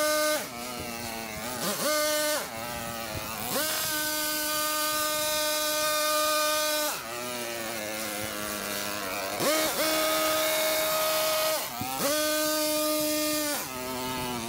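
Two-stroke engine of a Stihl KombiMotor driving a long-reach hedge trimmer attachment, throttled up to full speed and dropped back to idle again and again as the blades cut ivy. There are about four full-throttle bursts of one to three seconds each, with a lower idle between them.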